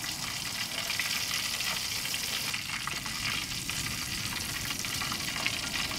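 Tiger prawns deep-frying in hot oil in a large aluminium pot: a steady sizzle with small crackles, stirred with a wooden spatula.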